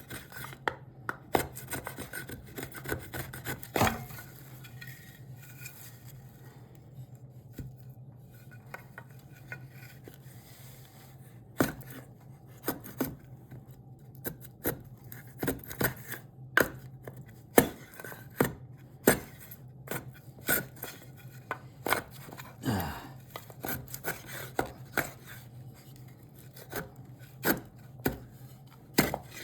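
Hand tools working a piece of cherry wood: irregular sharp knocks and scraping strokes, a few seconds apart and sometimes in quick runs, over a steady low hum.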